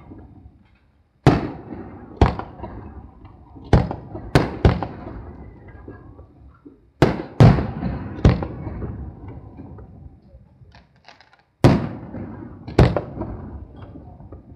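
Aerial firework shells bursting overhead: about ten sharp booms in irregular clusters, each followed by a fading echo, with a short lull before the last two.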